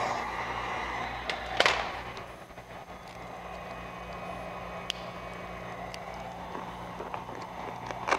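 Vinyl wrap film being handled and worked over a car's side mirror: a soft rustling scrape with one sharper crackle about a second and a half in, then a few small ticks. A steady low hum runs underneath.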